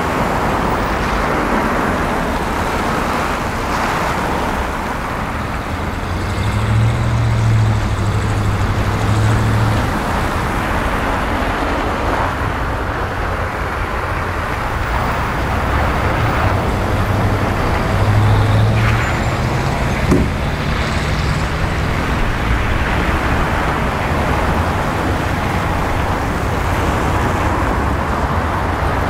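Street traffic on a snow-covered road: cars driving past with tyre noise, and the low drone of a small city bus's engine that swells twice.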